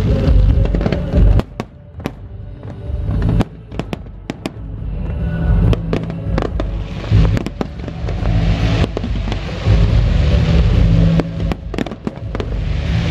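Fireworks display: a run of sharp launch and burst bangs from comets and aerial shells, over music playing. From about seven seconds in a steady hiss builds as many shells open together.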